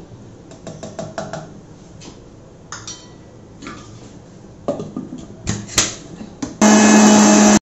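Light clinks and knocks of a steel mixer-grinder jar and its lid being handled, then about a second before the end a Panasonic mixer grinder's motor starts with a loud, steady whirr, beating eggs, sugar and oil into cake batter; it cuts off abruptly.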